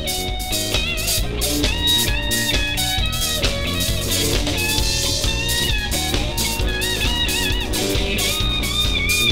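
Live band playing an instrumental passage: electric guitar over drum kit and bass guitar, with a steady beat and held, wavering high notes.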